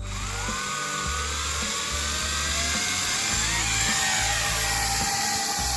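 Toy quadcopter's small electric motors and propellers start suddenly and run with a high whine over a hiss, the pitch rising and wavering as the throttle changes.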